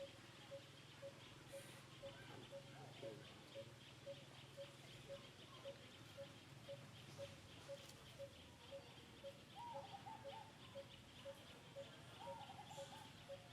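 Faint outdoor animal calls: a short piping note repeated evenly about twice a second over a fast, high chirring, with two brief squeaks near the end.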